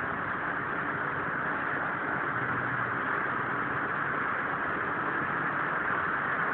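Steady, even hiss with a faint low hum underneath, unchanging and with no distinct events: background room noise.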